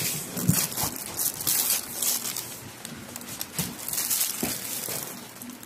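Plastic wrap crinkling and rustling in irregular bursts as a shrink-wrapped multipack of bar soap is handled and lifted out of a cardboard box.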